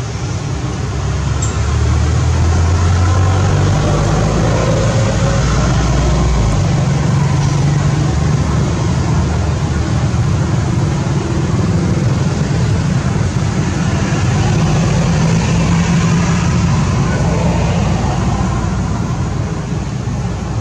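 Motor engine running steadily: a loud low rumble under an even hiss. It swells about a second and a half in.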